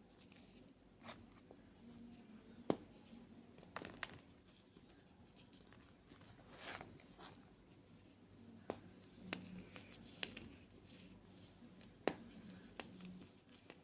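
White gym chalk being crushed and crumbled by hand: scattered sharp cracks and crunches at an irregular pace, with a few softer crumbling sounds between them.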